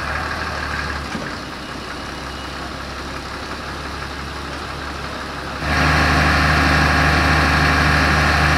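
Fire engines' diesel engines idling in a steady drone. About two-thirds of the way through, the drone suddenly becomes louder, with a stronger, steady hum.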